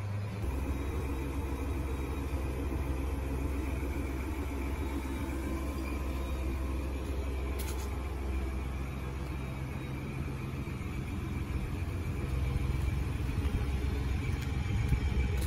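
Ford F-150's 2.7-litre twin-turbo EcoBoost V6, just started by remote start, idling with a steady low rumble.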